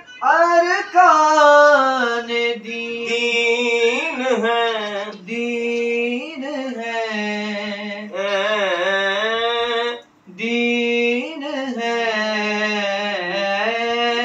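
A man singing a naat without words being clear, drawing out long held notes with wavering, ornamented glides. Short pauses for breath fall about five and ten seconds in.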